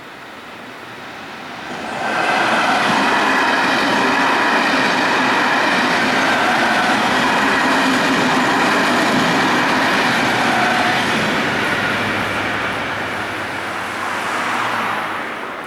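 Electric commuter train passing the level crossing. Its rolling noise rises sharply about two seconds in, stays loud for about ten seconds with a few steady tones running through it, then fades away near the end.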